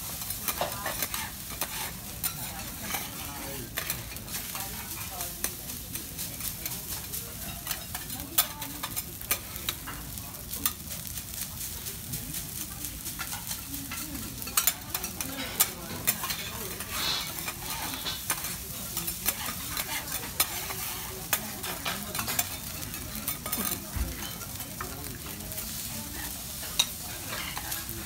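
Garlic rice sizzling on a teppanyaki steel griddle as two metal spatulas chop, scrape and turn it, with frequent sharp clicks of the spatula edges striking the steel over a steady hiss.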